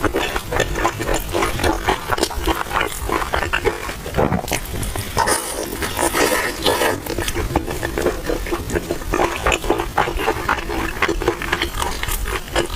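Close-miked chewing and mouth smacking of a person eating a crispy oil-skin bun, a steady run of small clicks and smacks.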